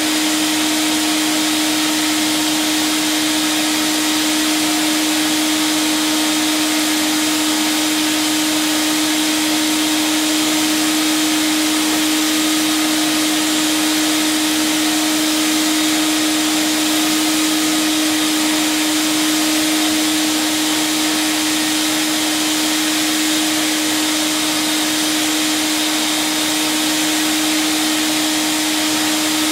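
Vacuum cleaner running steadily through a long metal wand and brush nozzle, a constant drone with one strong steady tone under a dense hiss.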